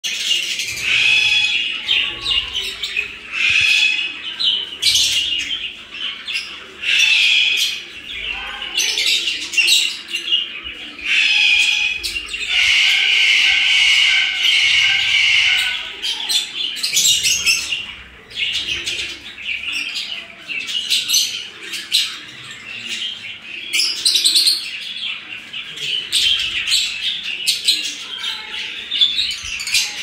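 A flock of peach-faced and masked lovebirds chattering: a string of short, shrill chirps and squawks, thickening into a stretch of continuous chatter about halfway through.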